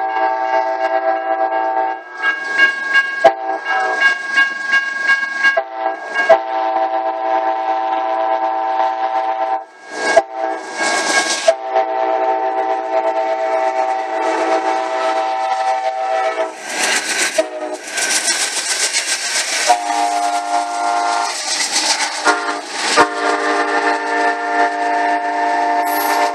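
Passenger train's multi-note air horn sounding a series of long blasts with short breaks as the train approaches and passes close by. Wheel and rail noise rises in the second half as the cars go past.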